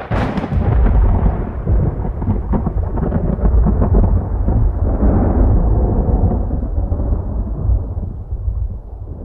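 Thunderclap: a sharp crack, then a long rumble with crackles running through it, easing off toward the end.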